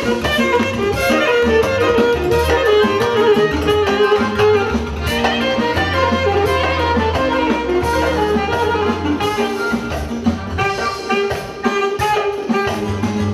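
Instrumental music: a lead melody over a sustained bass line, with a steady percussive beat.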